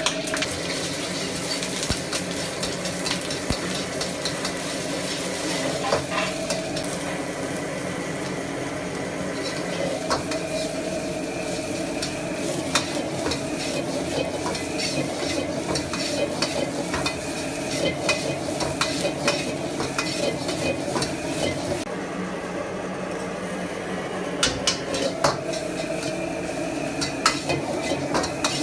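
Diced vegetables for fried rice sizzling in a wok over a gas burner, with a metal ladle scraping and knocking against the wok in frequent sharp clicks as the food is tossed.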